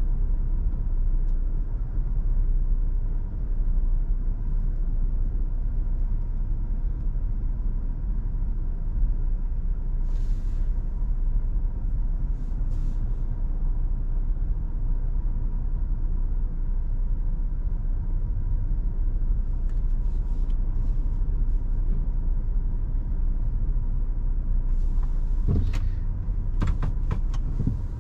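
Steady low rumble of a car idling, heard from inside the cabin, with a few sharp clicks and a thump near the end.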